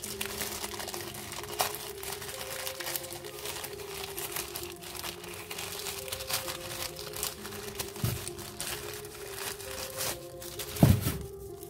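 Toy packaging being crinkled and torn open by hand, a dense run of small crackles, with a louder thump near the end. Quiet background music with steady tones underneath.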